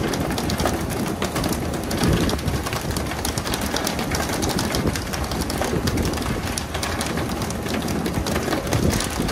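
Working deck of a pole-and-line tuna boat: a steady rumble with the hiss of the water sprays at the stern, and many sharp clicks and knocks of tuna landing and flapping on the deck.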